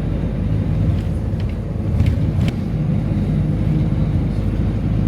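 Steady engine and road drone heard from inside a moving vehicle, with a few faint clicks about two seconds in.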